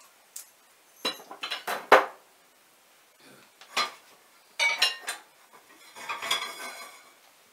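Metal kitchenware clinking and knocking on a stovetop as pans and utensils are handled, in irregular clusters: several sharp knocks between one and two seconds in, the loudest near two seconds, and another run of clinks near five seconds.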